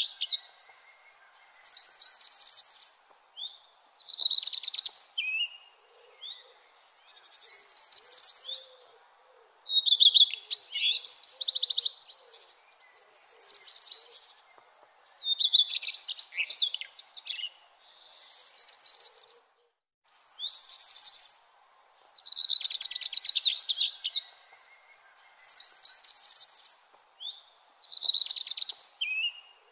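A songbird singing short phrases, each about a second long with a brief pause between, alternating a buzzy trill with a higher, hissing phrase, over faint steady background noise.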